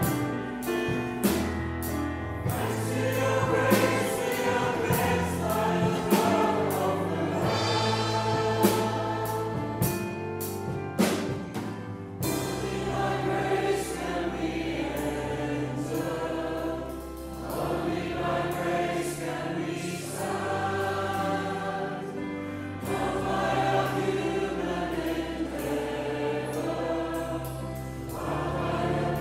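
Choir singing a Christian worship song with instrumental backing.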